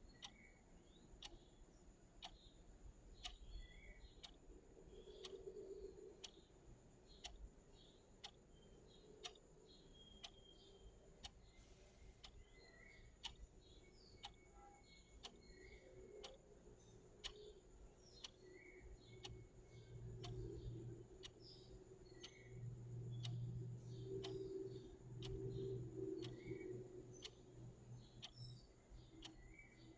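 Clock ticking faintly and steadily in an even rhythm. Small bird chirps sound in the background, and a low rumble swells in the second half.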